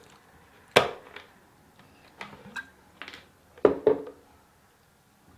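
Sharp cracks and knocks of a large lobster claw's shell being broken open and worked for its meat, with a loud crack about a second in, smaller clicks after it, and two loud cracks in quick succession near four seconds in.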